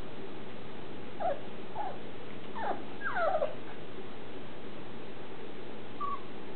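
Six-week-old Shetland sheepdog puppies whimpering: a quick run of short, high whines that each fall in pitch, then one more brief whine near the end.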